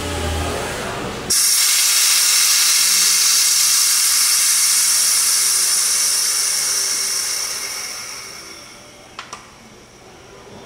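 Compressed air hissing out of a double-bellows pneumatic air bag jack as it deflates and lets the car down. The hiss starts suddenly about a second in, holds steady, then fades away over the last few seconds.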